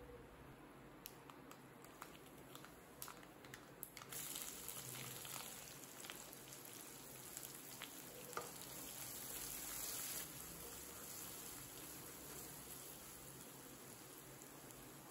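Whole spices crackling with scattered pops in hot oil in a nonstick kadai. About four seconds in, sliced onions and capsicum go into the oil and a steady sizzle takes over, loudest for the next several seconds and then easing off.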